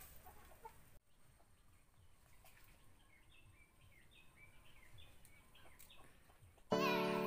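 Chickens clucking faintly in the background. Near the end, piano music comes in and becomes the loudest sound.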